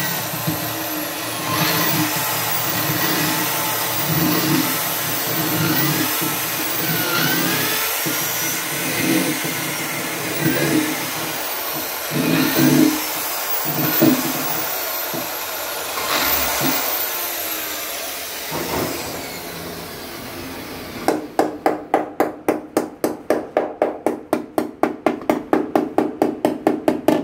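Corded electric drill running and boring into a wooden kitchen-cabinet panel, its pitch rising and falling with the load, for most of the first nineteen seconds. Then a fast run of sharp taps, about five a second, from a small hammer struck on the cabinet panel.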